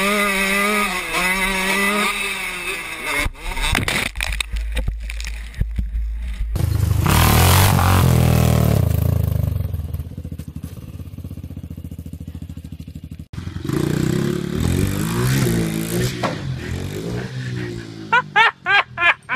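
Dirt bike and ATV engines running and revving across several short clips. A loud rushing noise comes about seven seconds in, and raised voices come near the end.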